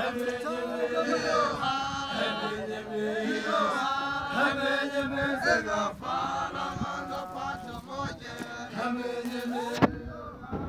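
A group of voices, mostly men, chanting a traditional song together. Near the end there is a sharp knock, and the singing briefly drops away.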